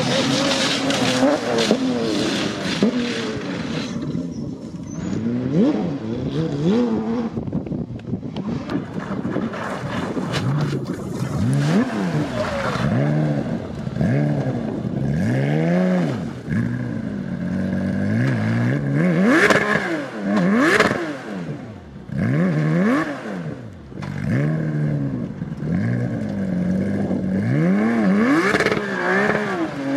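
Rally car engines revving hard on a loose gravel stage, the pitch climbing and dropping over and over as the cars accelerate, shift and lift, with tyres scraping on the gravel. A couple of loud sharp cracks come about two-thirds of the way in.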